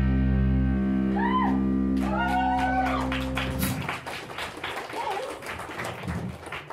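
A live band's amplified electric bass and guitar hold one ringing chord that cuts off about three and a half seconds in, with a few shouts over it. After it, scattered clapping and crowd chatter.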